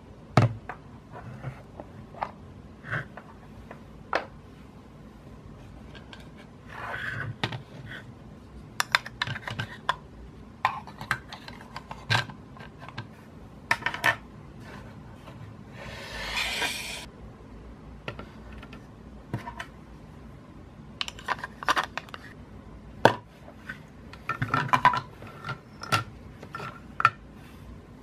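Hollow plastic toy cookware and toy food being handled: scattered clicks, taps and knocks of a plastic pot, lid, plate and bowl, with short bursts of clatter and one longer rasping scrape a little past halfway.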